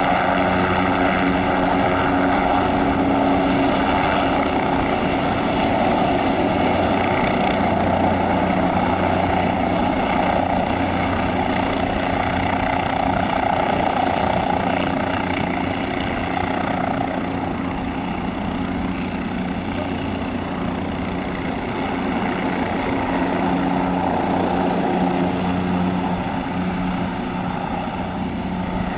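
Bell 407 helicopter hovering low: the steady whine of its single turboshaft engine over the beat of its four-blade main rotor. It becomes slightly quieter about halfway through.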